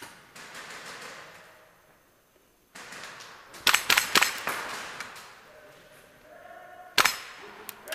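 Airsoft gunfire: a quick string of sharp, loud cracks about three and a half seconds in, and a single crack near the end, with softer rustling noise between.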